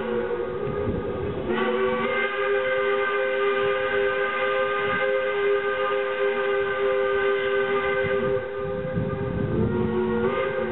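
Steam whistle of a Shay geared steam locomotive. One long blast lasts about seven seconds, and a shorter one starts near the end. Between the blasts the exhaust chuffs as the train pulls away.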